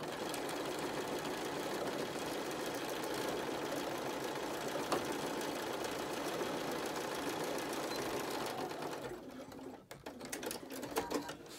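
Electric sewing machine running steadily as it stitches down the pleats of a fabric face mask, then stopping about eight and a half seconds in.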